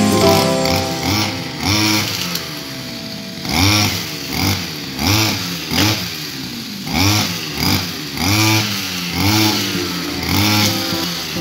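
Gasoline brush cutter engine revving up and dropping back again and again, about once a second, as the throttle is squeezed and eased while it cuts through grass.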